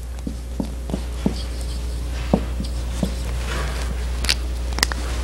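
Dry-erase marker writing a word on a whiteboard: a run of light taps and scratchy strokes, then two sharp clicks near the end.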